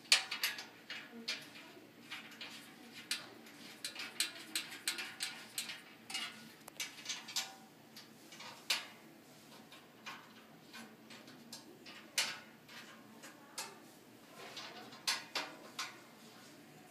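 Small metal bolts clicking and clinking against the holder's top panel as they are picked up and turned in by hand: a run of irregular light metallic clicks, the sharpest right at the start.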